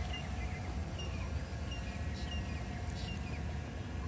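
Small birds chirping in short repeated notes, a couple a second, over a steady low rumble and the faint steady hum of two small camera drones hovering in place.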